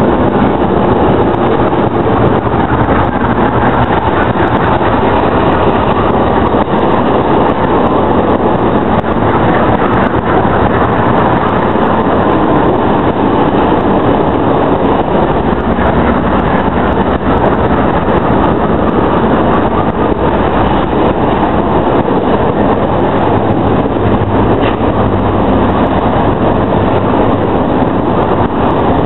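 GE diesel-electric freight locomotive passing close by with its engine running loudly, followed by loaded freight cars rolling past on the rails.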